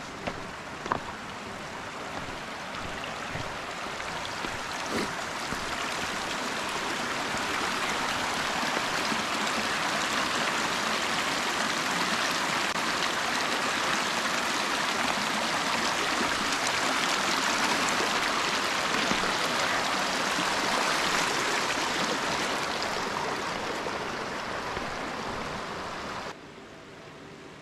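Shallow mountain stream running over stones, growing louder over the first several seconds, then easing off and cutting off suddenly near the end.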